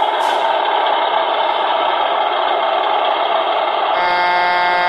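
Beier USM-RC-2 sound module in a 1/14 RC truck plays a steady diesel truck engine sound through its small speaker. About four seconds in, a held truck horn sound from the module starts over it.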